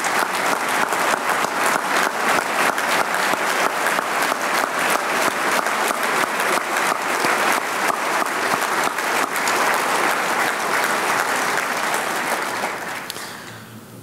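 Large audience applauding: many hands clapping at a steady level, fading away over the last second or so.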